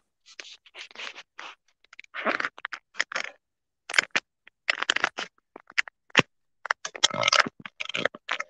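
Handling noise: scratching and scraping in many short, irregular bursts with abrupt silent gaps between them.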